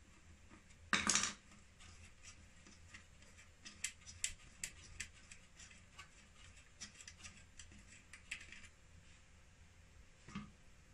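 Light metallic clicks and small rattles of hands handling wires and connectors inside an opened inverter's sheet-metal case, with a short louder scrape about a second in.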